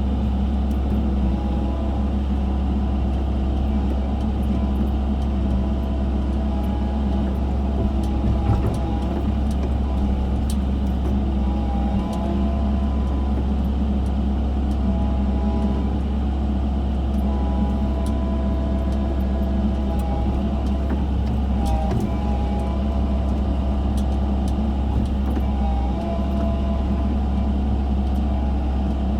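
Engine of a construction machine digging a drainage trench, running steadily under load, with higher tones that shift every few seconds and a few light knocks.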